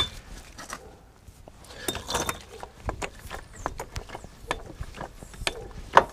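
Hydraulic trolley jack being pumped by its long handle, lifting a car: irregular mechanical clicks and knocks, the loudest about six seconds in.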